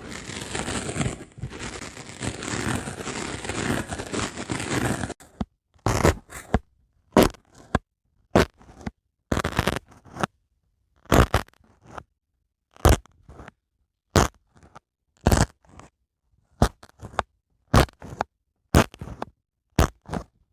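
Dry sponge worked close to the microphone: about five seconds of continuous crackly rubbing that stops suddenly, followed by short separate scratching strokes about once a second.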